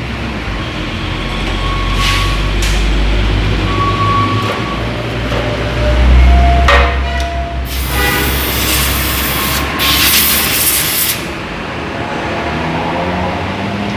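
Suzuki Raider 150 carburetted engine running with a deep low rumble that swells about six seconds in, joined by a loud hiss lasting about three seconds near the middle.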